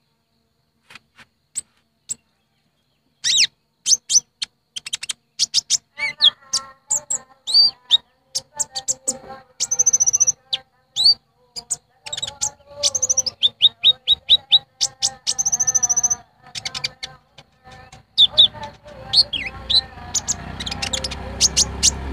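Kolibri ninja sunbird calling: rapid, high-pitched chirps, ticks and short trills, sparse at first and then dense and continuous, played as a lure call to draw in wild birds. Under it, from about six seconds in, runs a lower steady-pitched sound, and a low rumble builds near the end.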